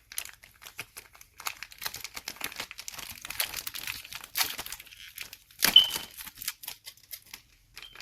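Plastic packaging crinkling and rustling as it is handled and pulled open, in irregular crackly bursts, with one louder rustle a little past halfway.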